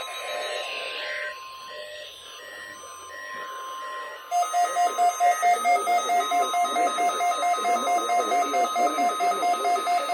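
Electronic weather-alert receiver alarm beeping over a steady tone. About four seconds in it switches to a louder, faster beep of about three a second.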